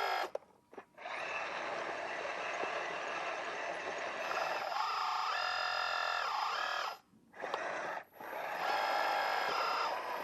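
Whine of a radio-controlled hydraulic construction model's pump and motors, its pitch rising and falling as the hydraulics are worked, cutting out briefly a few times.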